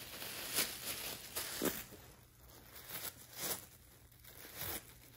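Red tissue paper crinkling and tearing in irregular crackly bursts as a Shih Tzu bites and tugs at it.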